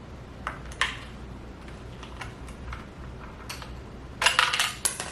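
Light clicks and taps of a small plastic bathroom scale and its packaging being handled, followed about four seconds in by a louder, denser burst of clattering.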